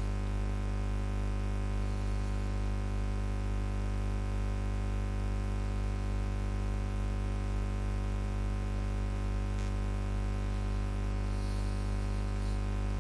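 Steady electrical mains hum with a long series of buzzing overtones, unchanging throughout.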